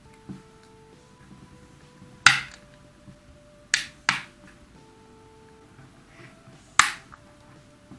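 Plastic snap-fit latches of a power bank's case snapping loose as the lid is pried off with a metal screwdriver: four sharp snaps, one about two seconds in, two close together near the middle and one near the end.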